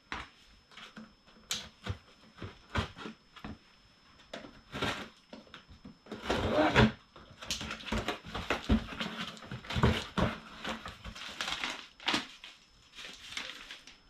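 Cardboard packaging being pulled open and handled, with irregular rustles, scrapes and knocks, busiest in the second half.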